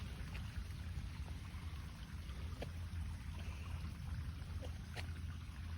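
Storm runoff running down a creek draw, a steady rush of water, with a couple of faint clicks.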